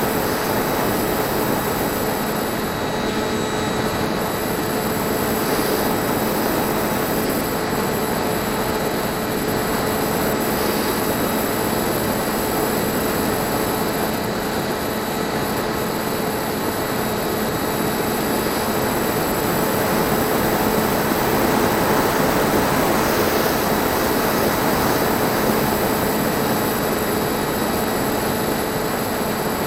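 Brushless electric motor (NTM 2200kv) and propeller of a Bixler 1.1 RC foam plane running steadily in flight: an even whine over rushing air noise.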